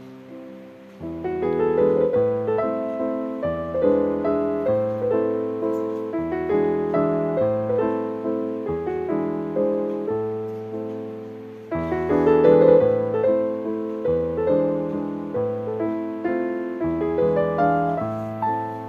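Background piano music: a melody of struck notes that ring and fade over a lower bass line.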